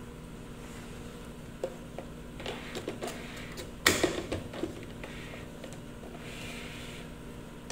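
Short plastic clicks and knocks as a small personal blender's jar is gripped and lifted off its motor base after blending, the loudest a sharp click about four seconds in.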